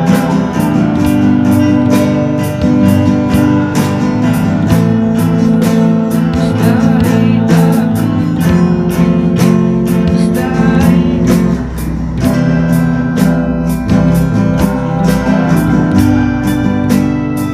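A male voice singing to a strummed acoustic guitar, the strumming in a steady rhythm of about two or three strokes a second.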